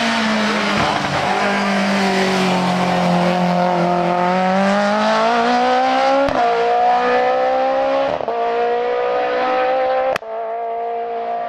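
Hillclimb race car engine accelerating out of a hairpin. The engine note dips at first, then climbs steadily through two quick upshifts about six and eight seconds in. An abrupt break near the end changes the sound.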